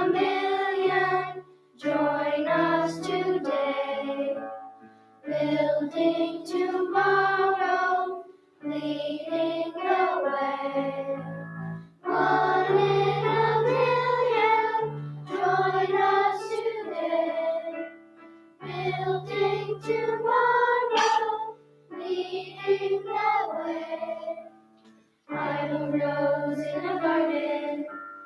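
A children's choir singing, phrase after phrase, with short pauses for breath between the phrases.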